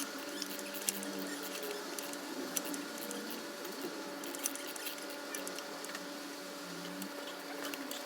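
Scattered light clicks and ticks of metal parts and hand tools being handled during motorcycle engine reassembly, over a steady faint hum.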